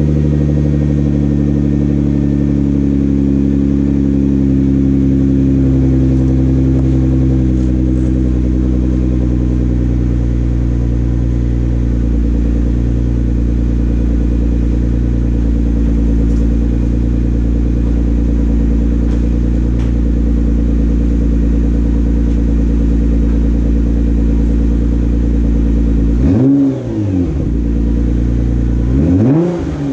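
Nissan GT-R's twin-turbo V6 idling steadily after a cold start, heard at its exhaust with blued titanium tips. Near the end the engine is blipped twice: the pitch rises and falls quickly, then rises again.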